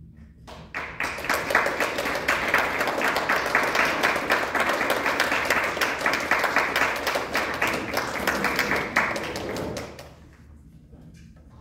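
Audience applauding, starting under a second in and dying away about ten seconds in.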